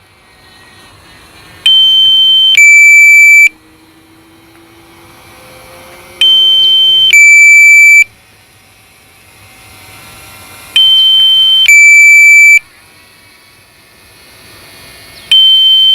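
Loud two-tone electronic alarm. A higher beep is followed straight away by a lower beep, each just under a second long, and the pair repeats about every four and a half seconds. This is the low-battery warning of a DJI Mavic Mini's controller and app while the drone is flying its return to home.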